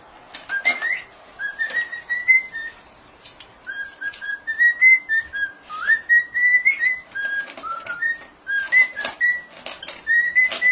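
Cockatiel whistling a string of short, clear notes, several sliding upward, with sharp clicks and crunches from a dog eating dry kibble out of a bowl.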